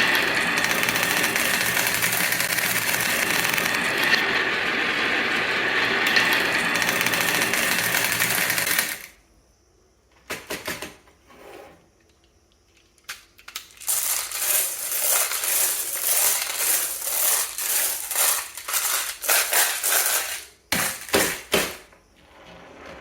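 Marbles rolling and clattering down a marble run track: a steady rush of many rolling marbles for about nine seconds, a pause broken by a few single clicks, then a long stretch of rapid clattering, with a few last clicks near the end.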